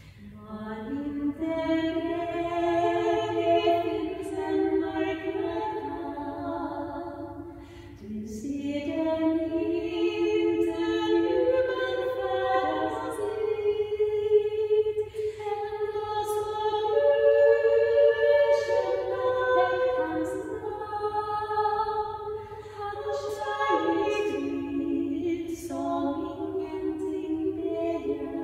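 Two women's voices singing a cappella in Swedish, in two-part harmony, in a church. The singing breaks briefly between phrases about eight seconds in and again near the end.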